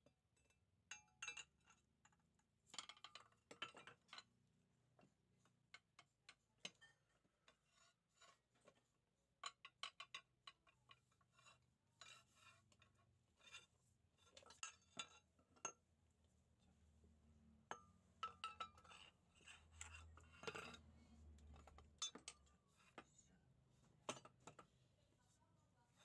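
Faint, irregular metallic clinks and taps as the steel rack bar of a Toyota Avanza steering rack is handled and slid into its rack housing.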